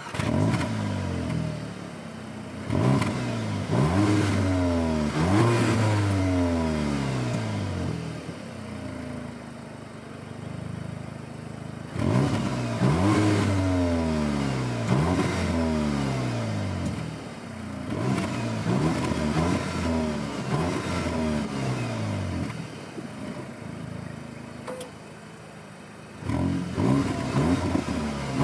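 Exhaust of a 2022 CUPRA Ateca's 2.0 TSI turbocharged four-cylinder, heard at its quad tailpipes with the car standing: the engine fires up with a flare, then is revved again and again, each rev rising and falling back to idle, with steadier idling stretches between. Near the end it turns louder, with the car switched into Cupra mode.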